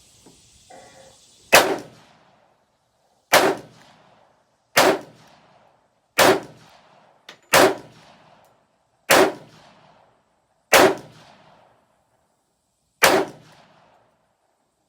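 Eight single gunshots, spaced about one and a half seconds apart with a longer gap before the last, each followed by a short echo.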